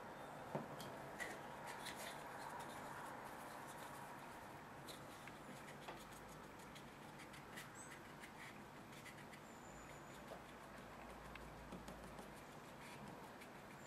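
Faint scratching of a piece of card scraping wet paint on watercolour paper, then a wide flat brush stroking across the paper, with scattered small ticks.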